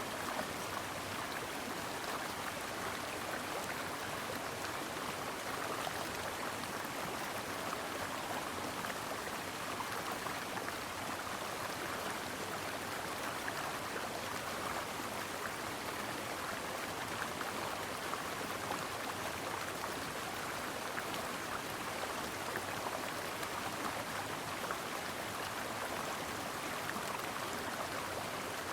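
Shallow stream flowing over rocks: a steady, even babbling and rushing of water with no change.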